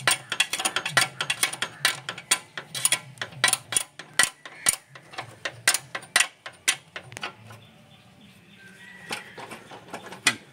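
Steel spanner working the rear axle nut of a TVS XL Super moped, tightening the wheel: rapid metallic clicks, several a second, that thin out and grow fainter about seven seconds in.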